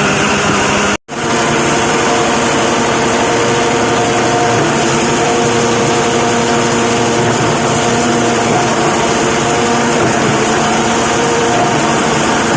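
Plastic crusher machine running steadily, its motor giving a steady hum with several tones over a dense mechanical noise. The sound cuts out for an instant about a second in, then resumes unchanged.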